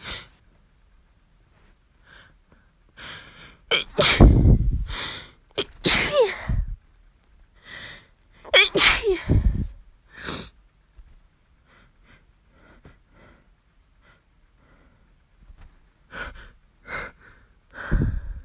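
A person sneezing over and over in a fit, with loud sneezes from about four to ten seconds in and a few more near the end. The sneezer puts it down to a room that may need cleaning.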